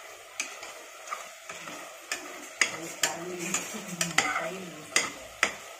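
A spoon stirring vegetables frying in an aluminium pressure cooker, knocking and scraping against the pot about twice a second over a steady sizzle of oil.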